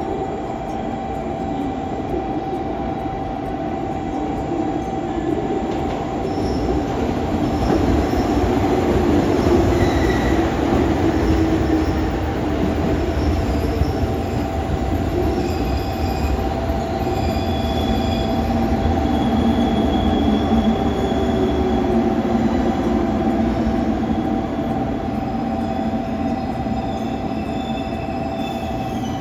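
Train running on rails: a steady rumble with a constant high tone through it and fainter higher tones coming and going, swelling a little around ten seconds in.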